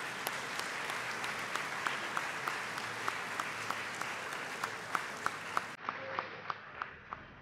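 Audience applauding, with sharp, evenly spaced clicks about three a second standing out above the clapping. The applause eases off a little near the end.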